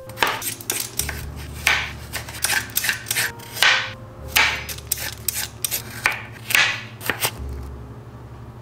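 Chef's knife chopping carrots on a white plastic cutting board: a run of irregular knocks of the blade hitting the board, thinning out near the end.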